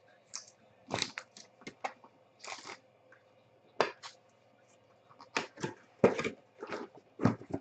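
Trading cards and plastic card holders being handled, with a string of sharp clicks and taps and short rustling swishes.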